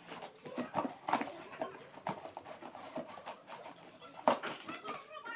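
Scissors snipping and slicing through packing tape on a cardboard box: a run of irregular sharp clicks and crackles. A short high-pitched call comes near the end.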